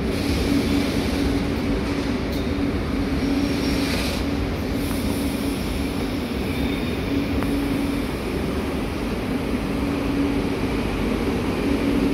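Renfe Media Distancia passenger train pulling slowly into the platform: a steady rumble with a low, even hum.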